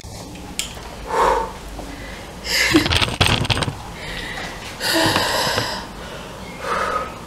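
A woman's short, breathy exhalations close to the microphone, four of them, with the rustle and knocks of the camera being handled during the loudest one in the middle.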